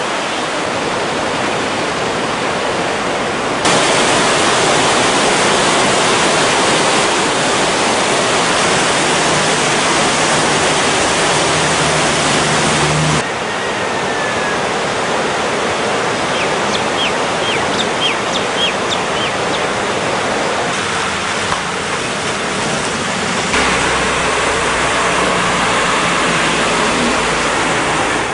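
Flood-swollen river rushing: a loud, steady roar of water that jumps in level at several cuts. Near the end a deeper low rumble joins it.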